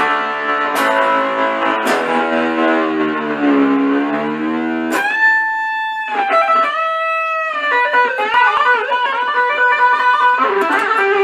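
Electric guitar playing: ringing chords whose pitch sags and comes back up, then held notes and a passage of quicker notes.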